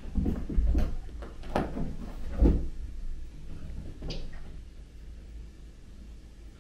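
Soft thumps and scuffling of a kitten and a cat play-fighting on a carpeted floor, several knocks in the first two and a half seconds, then quieter with one short higher sound about four seconds in.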